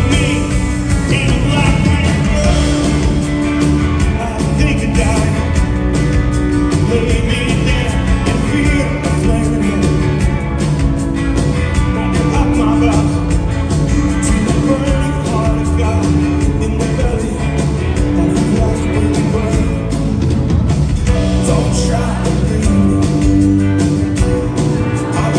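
Live rock band playing a song with a steady beat, a male lead singer singing over the band and keyboard.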